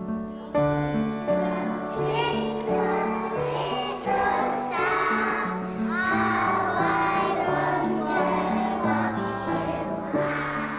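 Children's choir singing over instrumental accompaniment with a steady stepping bass line; the singing comes in about two seconds in.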